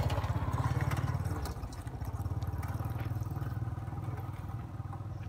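An engine running with an even, low pulsing beat. It is louder over the first second and a half, then settles to a lower, steady level.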